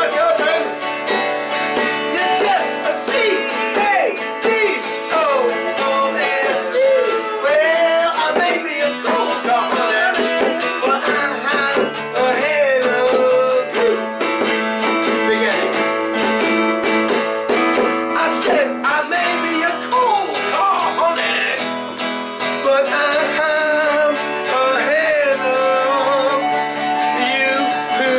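Small live band playing a country-style song: strummed acoustic guitar, electronic keyboard and a hand drum, with a pitched melody line weaving over a steady accompaniment.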